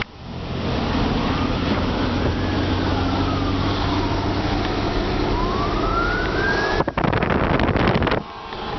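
Emergency-vehicle siren wailing, its pitch rising and falling slowly over a few seconds per sweep, over a steady low hum. Near the end a loud rush of noise covers everything for over a second.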